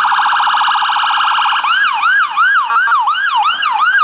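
Ambulance's electronic siren sounding in a very rapid warble, then switching about one and a half seconds in to a yelp of quick rising-and-falling sweeps, about four a second.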